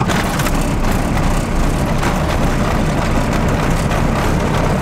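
A first-generation Dodge Ram's 12-valve Cummins 5.9 L inline-six diesel running steadily with a loud, dense clatter, heard from inside the cab. It has just caught on a cold start after sitting for a month.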